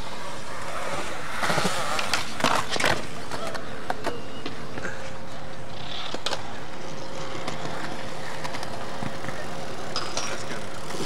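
Skateboard wheels rolling on concrete, with a few sharp clacks of boards about one to three seconds in and again later, over a steady hiss.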